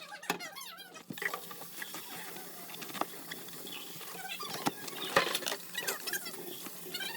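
Kitchen food-prep handling: scattered clicks and knocks of utensils and dishes over a steady hiss that starts about a second in.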